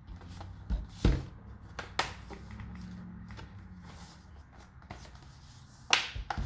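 Plastic clips of an HP laptop's bottom case snapping into place as the cover is pressed shut: a few sharp clicks and knocks, about a second in, at two seconds and again near the end.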